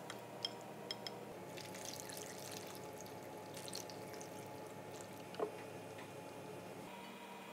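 Fish cake skewers set down into a bowl with a few light clicks, then fish cake broth poured from a frying pan over them, a faint trickle and drip. A single soft knock comes a little after five seconds in.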